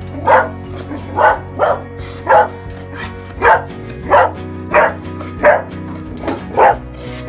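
Large red-coated dog barking about ten times in a row, sharp single barks roughly every half second to second, demanding a promised treat.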